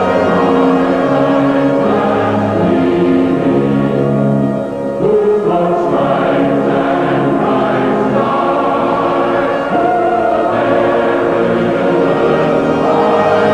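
Choral music: a choir singing in long held chords, with a brief dip in level about five seconds in.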